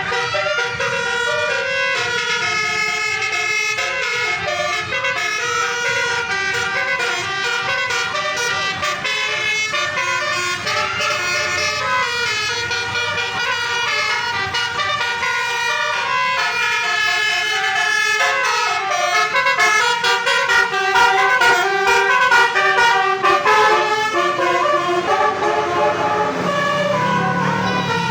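Bus 'telolet basuri' melodic horns playing tunes without a break: several horn tones sounding together and stepping quickly from note to note, a little louder past the middle.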